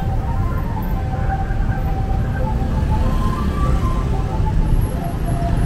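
Dense city street traffic of cars and motor scooters driving past, a steady low rumble, with faint tones drifting in pitch in the background.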